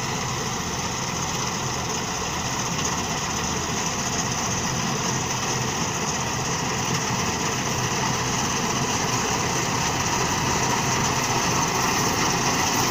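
Combine harvester running steadily, its engine and machinery making a continuous drone with a whine, gradually getting louder.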